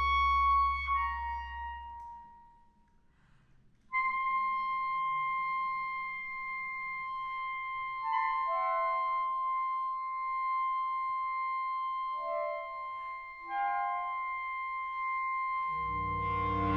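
Clarinet ensemble of E-flat, B-flat and bass clarinets playing. A low held chord fades away about two seconds in, leaving a brief near-silence. Then a single high clarinet note enters suddenly and is held while other clarinets add short notes around it, and the low clarinets come back in loudly near the end.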